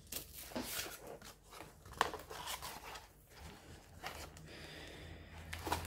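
Rustling and crinkling of a rolled diamond-painting canvas and its protective paper sheet being handled, with irregular sharp crackles, the sharpest about two seconds in.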